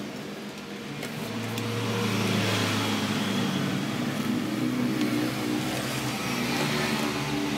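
Hand-held electric heat gun running: a steady motor whir with rushing air, growing louder over the first couple of seconds and then holding.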